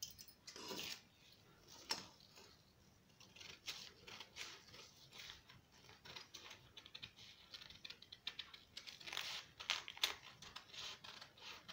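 Scissors cutting through a sheet of lined paper along a curved pattern line: a faint, irregular run of short snips with some paper rustling.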